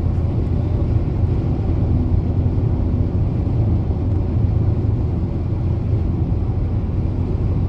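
Steady low rumble of a car's tyres and engine heard inside the cabin while driving.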